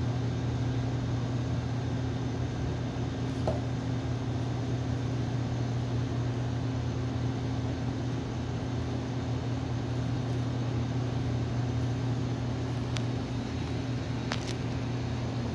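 Steady low machine hum, like a fan or air-conditioning unit running, with a few faint light clicks from the slender sections of a telescopic fishing rod being handled.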